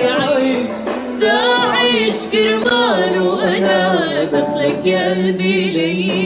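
A woman singing an Arabic song over instrumental accompaniment, her voice drawn out in gliding, wavering ornaments.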